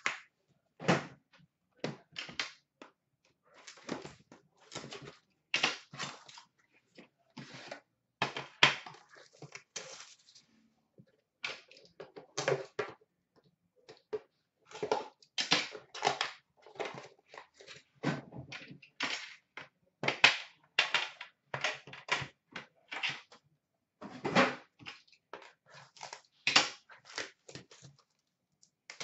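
Hands handling trading-card packaging and cards: an irregular run of short rustles, scrapes and clicks, with a couple of brief pauses.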